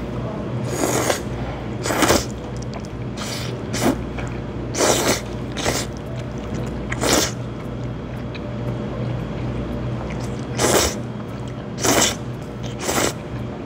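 Jajangmyeon noodles being slurped in about ten short, sharp slurps, a second or so apart, with a longer pause in the middle.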